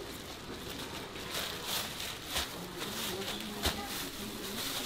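Thin plastic crinkling and rustling as clear plastic food-prep gloves handle a plastic bag, with one sharp click about three-quarters of the way through.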